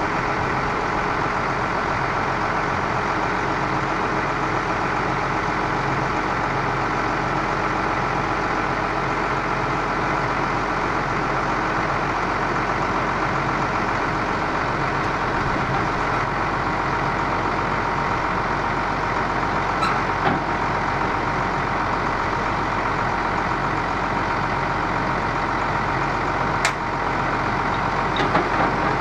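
International DT466 inline-six turbo diesel running steadily at idle while it powers the hydraulics that lower the dump body and swing the plow blade. A few sharp knocks sound about two-thirds of the way in and near the end.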